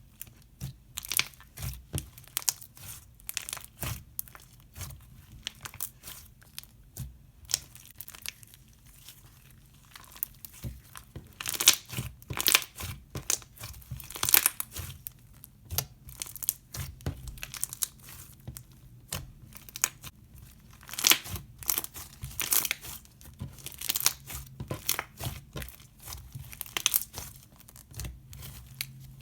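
Foam-bead slime being stretched and squished, giving irregular crackling bubble pops and soft crunches.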